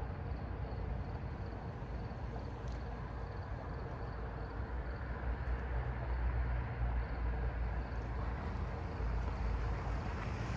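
Low, steady rumble of an approaching passenger train, growing slightly louder near the end, with no horn sounding yet.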